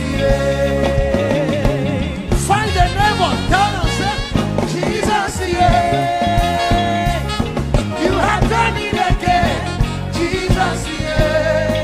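Live gospel worship music: a full band groove with a lead melody of bending runs and long held notes.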